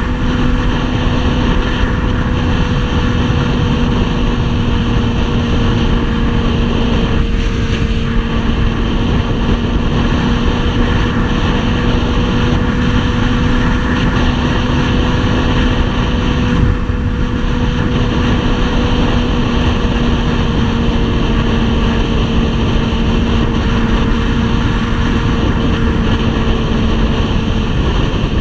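2003 Yamaha R6's inline-four engine running at a steady cruise. Its note holds one pitch and eases slightly lower near the end, over heavy wind rush on the microphone.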